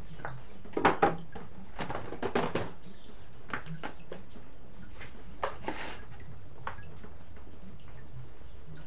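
A few sharp wooden knocks and clatters, the loudest pair about a second in and smaller ones a few seconds later, as a wooden cutting board and kitchen things are set down on a wooden table. A steady hiss runs underneath.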